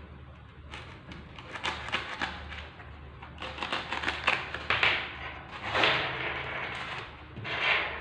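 A craft knife scoring and cutting through a white foam sheet, giving irregular scratchy, crackling strokes, with the foam rubbing and being handled as a cut strip is pulled away near the end.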